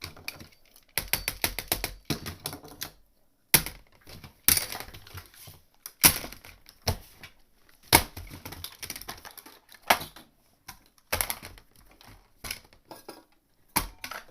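Hands banging and hammering on a laptop's keyboard and case: quick clattering runs of taps mixed with separate hard knocks, stopping and starting again.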